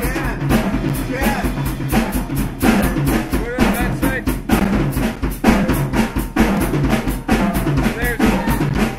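Blues-rock band playing live, the drum kit to the fore with rapid strikes on bass drum, snare and cymbals, over steady low bass notes and bending higher notes.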